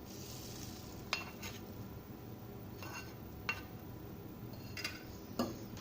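Metal cooking utensils clinking, about five light knocks with a short ring, as the tadka pan and spoon tap against the pot of dal while the tempering is poured in.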